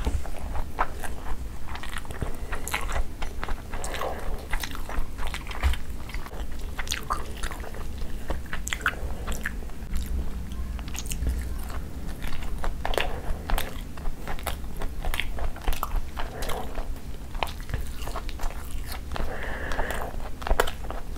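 Close-miked chewing of a mouthful of curried rice and chicken, with many small wet mouth clicks and smacks.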